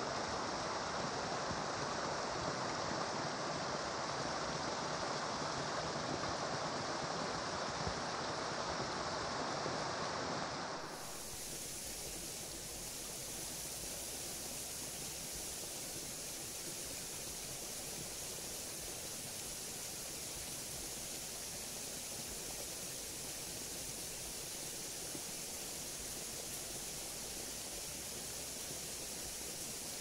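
Small stream running steadily, a continuous rush of water. About eleven seconds in it cuts off abruptly, leaving a quieter, even outdoor hiss.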